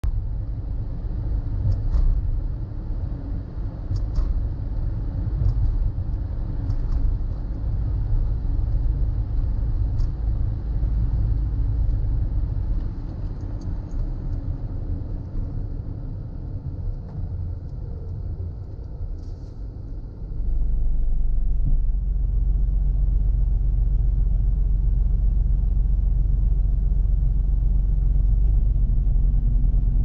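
A car driving slowly, with a low engine and road rumble heard from inside. About twenty seconds in, the rumble gets louder and turns into a steady low hum.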